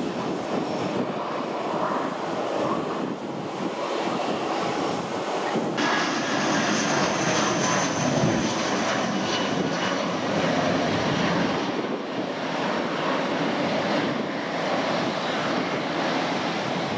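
Airbus A321-211's CFM56 jet engines running as the airliner rolls out after landing, a steady loud rush of engine noise. About six seconds in, the sound turns brighter, with a faint high whine over it.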